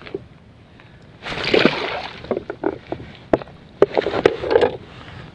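Shallow saltwater splashing and sloshing: a longer splash about a second in, then several short, irregular splashes and knocks.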